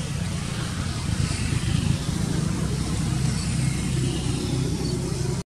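Steady low rumble with a hiss over it, the kind given by a running engine or traffic close by.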